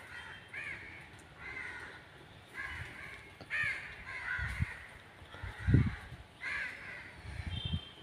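Several crows cawing again and again, their calls overlapping. A few low thumps sound in between, the loudest about six seconds in.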